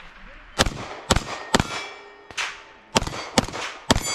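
A timed string of gunshots at steel targets: six or seven sharp shots about half a second apart, several followed by the ring of a struck steel plate, with one miss in the string.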